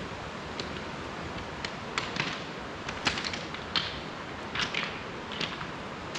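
Footsteps crunching on loose stony pebbles, one crunchy step roughly every second, over a steady background hiss.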